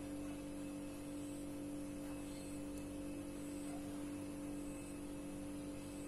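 A steady electrical hum made of a few fixed low tones, with no bird calls.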